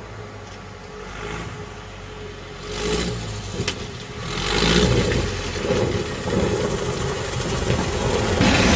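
An engine running under a noisy rush, swelling in loudness about three seconds in and again from about four and a half seconds on.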